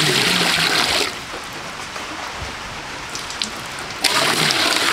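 Water poured into a metal pot, splashing loudly against the pot and the water already in it. There are two pours, the second starting about four seconds in, with quieter splashing between them.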